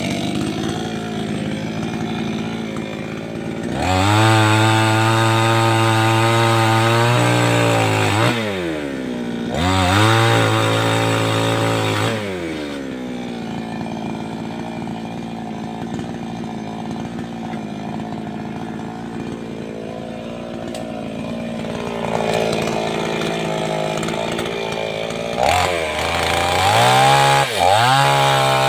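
588X two-stroke chainsaw running while cutting a large tree. It is throttled up to full speed and back down several times: about four seconds in, about ten seconds in, and again near the end. In between it runs at a lower speed.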